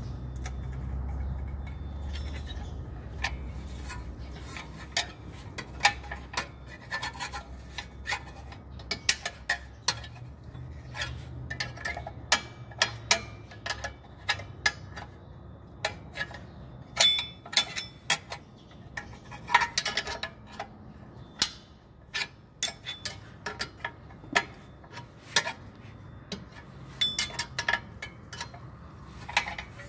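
Steel screwdriver clicking, tapping and scraping against the hold-down springs and shoes of a Nissan X-Trail's rear drum-in-disc handbrake, in irregular metallic clinks, some in quick clusters.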